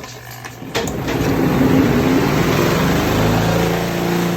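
Portable washing machine's motor starting up about a second in for the rinse and then running with a loud hum, its pitch wavering at first and then holding steady.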